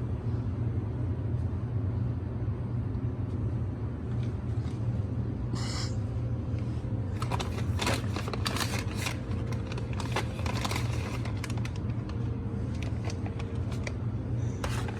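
Steady low rumble of outdoor background noise, with a brief rustle about five and a half seconds in and scattered rustling and clicks from about seven to eleven seconds in.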